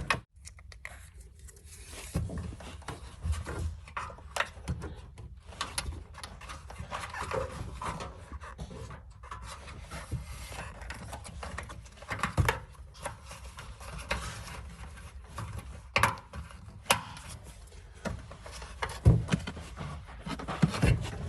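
Hands working inside a car door while new speaker wire is fed in: irregular clicks, knocks and rubbing of wire and plastic, with a few louder knocks scattered through.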